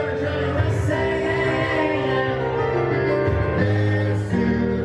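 Live piano-bar music: a grand piano played with singing over it, amplified through the room.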